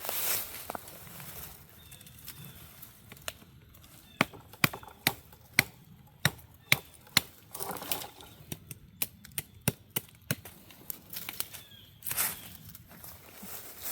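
A run of sharp knocks, about two a second for several seconds, with rustling at the start and near the end.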